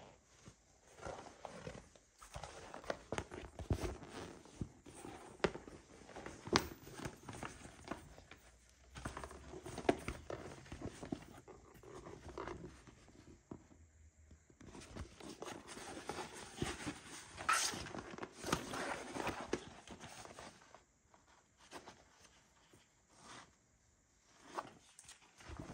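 Hands handling a coated-canvas tote bag with leather trim, its fabric dust bag and cardboard box: irregular rustling and soft taps, broken by a few sharp clicks and short quiet gaps.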